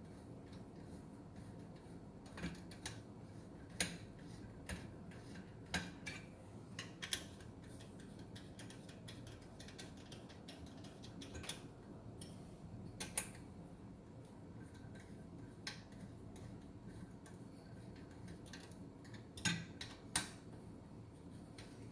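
Irregular light metallic clicks and taps of hand tools and bolts as bolts are fitted into a motorcycle bracket, with a few sharper clicks close together near the end, over a faint steady low hum.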